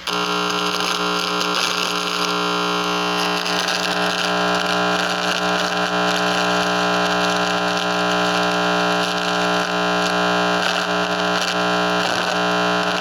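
Loud, steady electronic buzz and hiss from a homemade microwave receiver's audio output: many held tones stacked over static, cutting in suddenly. The owner takes it for transmitted communication aimed at his room.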